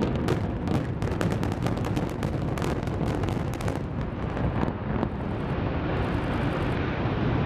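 Building implosion by explosives: a rapid series of sharp cracks from the demolition charges, then a steady rumble as the hotel tower collapses.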